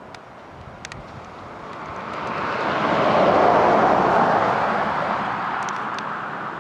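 A vehicle passing by: a rushing sound that swells to a peak about three and a half seconds in, then slowly fades.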